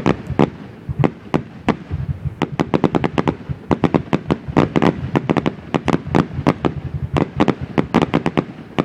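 Fireworks going off in a rapid, irregular string of sharp bangs, several a second, with a short thinner spell about a second in.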